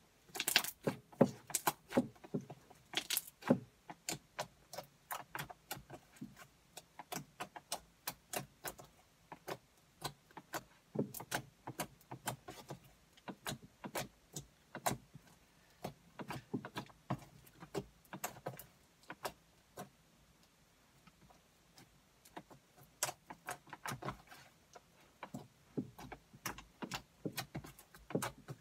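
Slime being squeezed and kneaded by hand, making quick, irregular clicks and pops several times a second. There is a short lull about two-thirds of the way through.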